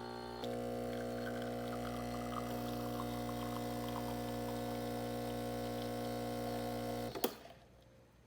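An electrical appliance humming steadily, then switching off with a click about seven seconds in.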